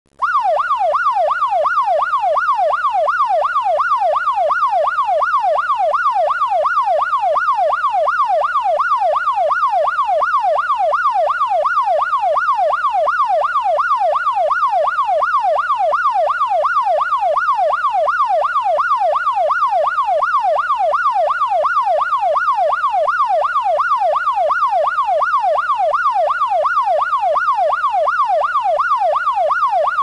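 Electronic police siren in a rapid yelp, its pitch sweeping up and down a couple of times a second in an even, unbroken cycle. Loud and steady throughout.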